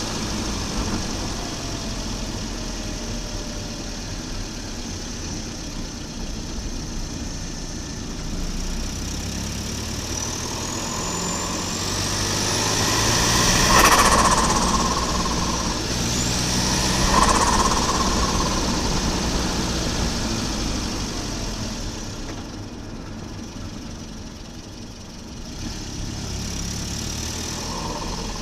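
Volvo 940 Turbo's B230FT turbocharged four-cylinder engine running and being revved twice: each time the turbo whistle climbs in pitch, then cuts off suddenly as the throttle is lifted, with turbo flutter (compressor surge). The engine drops quieter for a few seconds and picks up again near the end.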